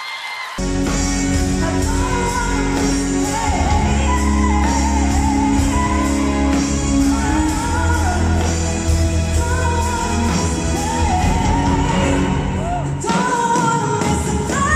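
A light lyric soprano sings live with a full band in a large hall, with arching vocal runs. Near the end she holds a high note and then steps up to an even higher sustained one.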